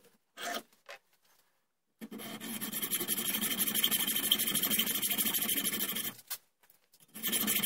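Hacksaw sawing through a steel angle-bar blank clamped in a bench vise: a steady run of rasping strokes for about four seconds, then a second short burst of sawing near the end.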